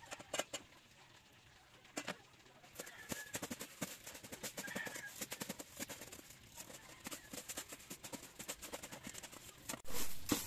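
Pork chops frying in oil, with quick irregular crackles and pops that start about two seconds in after a near-silent moment.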